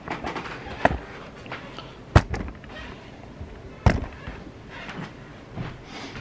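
Camera handling noise: the camera knocked and moved about with fabric rustling against it, giving three sharp knocks about one, two and four seconds in, the middle one the loudest.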